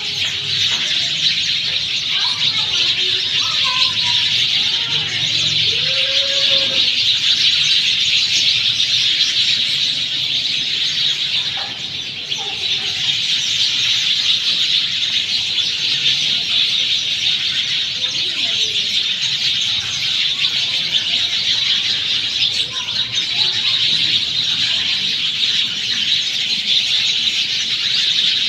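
A large flock of small birds chirping together in a dense, continuous chorus of high, overlapping calls, with a few lower gliding calls here and there.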